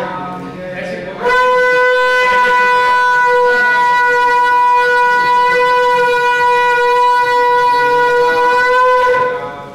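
A conch shell (shankha) blown in one long, steady note that starts about a second in and holds for about eight seconds before fading.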